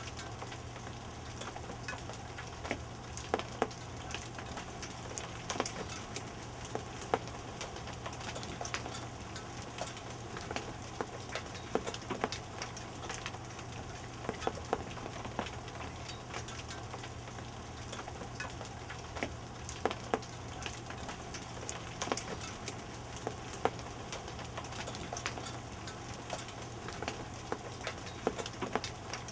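Hailstorm with rain: a steady hiss of falling precipitation, with frequent sharp ticks of hailstones striking the deck and objects around it.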